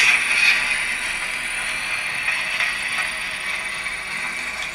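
ACME H0 model of an FS E.636 electric locomotive running slowly, its digital sound decoder playing the locomotive's running sound through the model's small speaker: a steady hiss-like running noise with a thin high whine, easing off slightly.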